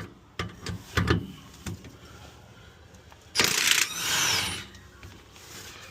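A few metallic tool knocks, then about three seconds in a short loud burst from an impact wrench undoing the bottom bolt of the rear shock absorber, its pitch gliding as it winds down.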